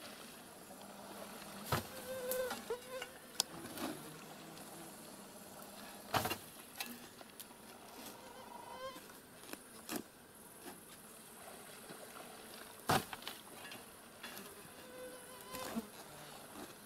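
Faint splashing and swirling of water from a person swimming and wading in a shallow pond, with small insects buzzing close by. A few short, sharp knocks stand out, the loudest about six and thirteen seconds in.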